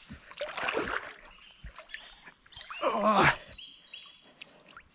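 Water splashing and sloshing as a person wades through deep pond water. A short voice-like cry with a sliding pitch comes about three seconds in and is the loudest sound.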